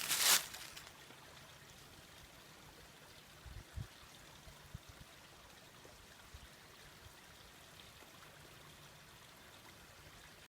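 Faint, steady trickle of a small spring-fed stream, after a few loud steps at the very start. There are a couple of soft low knocks about three and a half seconds in.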